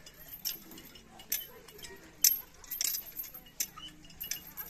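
Irregular sharp clicks and clinks, several a second, one much louder than the rest a little over two seconds in, over faint voices.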